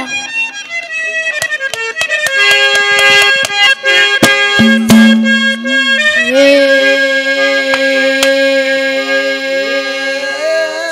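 Harmonium playing sustained chords with drum strokes, the drumming busiest in the first half: the instrumental accompaniment of a Haryanvi ragni between spoken and sung parts.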